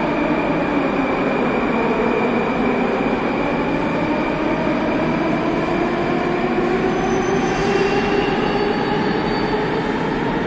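Moscow Metro train running through the station, a steady loud rumble with a motor whine that slowly shifts in pitch, and faint high wheel squeal sliding down about two-thirds of the way through.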